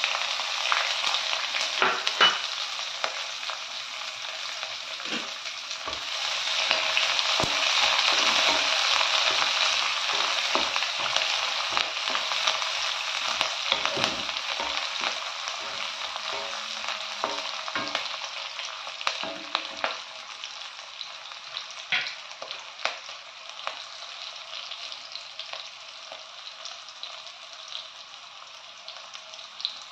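Chopped onions sizzling as they fry in hot oil, stirred with a wooden spatula that scrapes and taps the pan, mostly in the first twenty seconds or so. The sizzle grows louder several seconds in, then settles lower.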